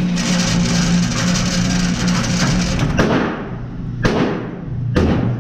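Three gunshots about a second apart, each echoing in an indoor shooting range, coming after a steady rushing noise and hum that fill the first three seconds.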